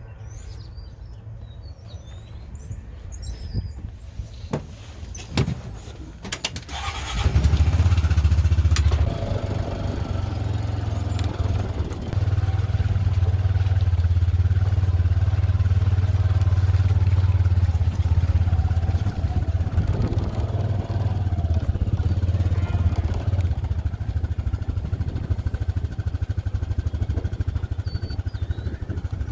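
A vehicle engine running. A few sharp clicks and knocks come about five to seven seconds in, then the engine grows much louder and runs steadily under load as the vehicle moves off.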